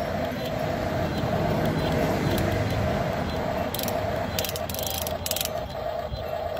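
A 1/16-scale RC excavator's small electric motors and gearboxes whirring as the boom and bucket move, with a hum that pulses about twice a second and a few short clicks near the end.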